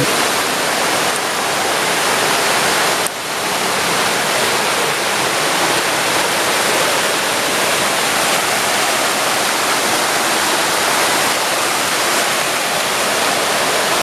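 Waterfall: water pouring over rock cascades in a loud, steady rush, with a brief dip about three seconds in.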